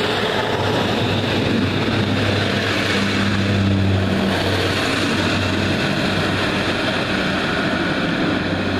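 Northern Rail diesel multiple unit's underfloor diesel engines running as the train pulls out and passes, a loud steady low drone with the noise of the train running over the track.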